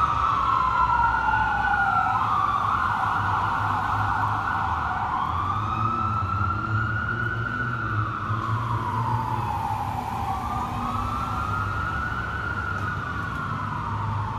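Wail sirens of a fire engine and a ladder truck responding, each slowly rising and falling. Two sirens overlap at first, then one carries on, fading gradually as the trucks move away, over a low engine and traffic rumble.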